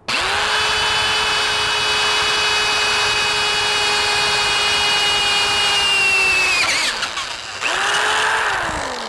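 Electric drill with a 1/4-inch carbide-tipped bit drilling holes in a steel circular saw blade held in a vise. The motor whine starts suddenly and holds steady for about seven seconds, pauses briefly, then runs again in a short burst that winds down with falling pitch near the end.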